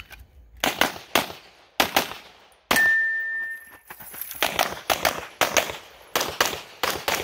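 Rapid pistol fire in a USPSA stage: a string of handgun shots, mostly in quick pairs, with a pause of a second or two as the shooter moves to a new position.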